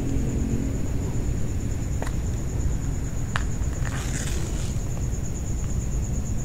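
Insects trilling steadily at a high pitch, over a steady low rumble, with a few scattered clicks and scuffs.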